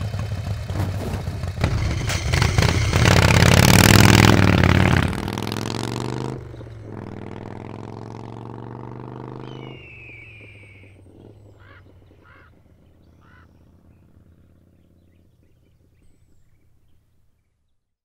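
Chopper motorcycle engine revving hard and pulling away, loudest a few seconds in, then a steady drone that drops in pitch and fades into the distance until gone.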